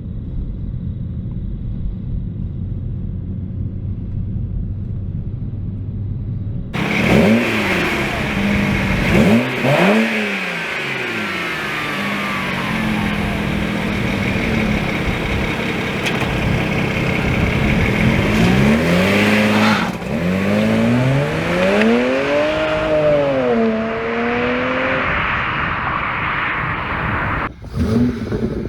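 BMW 335i's N54 twin-turbo inline-six, with full bolt-on modifications, heard from the car while driving. It starts as a steady low rumble. About seven seconds in it switches abruptly to hard revving, the engine note climbing and dropping again and again through acceleration pulls.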